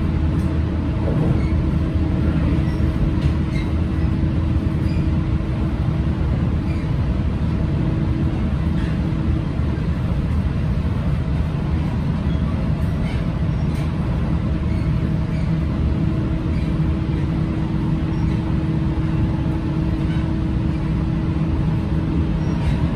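Inside a JR Central 313 series electric train running at speed: a steady low rumble of wheels on rail with a faint steady hum that fades midway and comes back.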